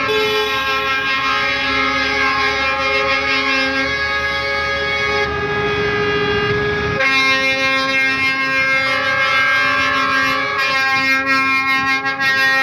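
Many semi-truck air horns blaring together in a long, continuous chord of held tones as a convoy of trucks passes, sounded in protest during a truckers' strike; the mix of horns shifts abruptly about five and seven seconds in.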